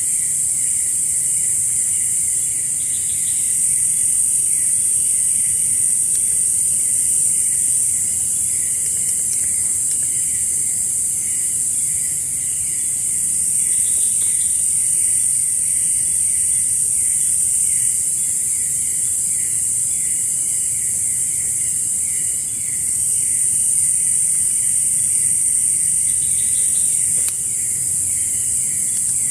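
Forest insects calling nonstop: a steady, high-pitched drone, with a second insect chirping rapidly and evenly at a lower pitch underneath.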